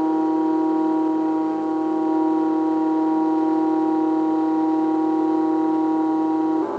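Stepper motors of a MakerBot Thing-O-Matic 3D printer singing a steady pitched whine during a long constant-speed move, switching abruptly to a different pitch near the end as the move changes.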